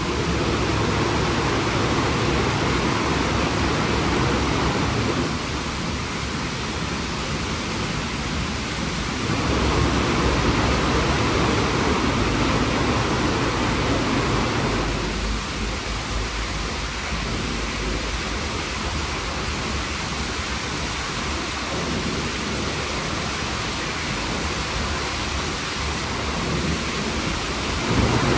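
WashTec SoftCare² Pro rollover car wash in its shampoo wash cycle: SofTecs² brushes turning over the car with water spraying, a steady rushing wash noise. Its sound shifts in character about five, nine and fifteen seconds in as the gantry and brushes move.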